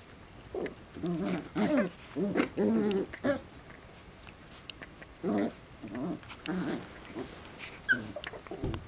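West Highland White Terriers, puppies and adults, growling in play as they wrestle, in short wavering growls that come in two spells, with a brief squeak near the end.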